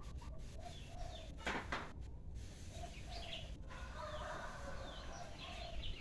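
Chickens clucking in repeated short calls, with small birds chirping higher up. A brief rustling noise comes about one and a half seconds in.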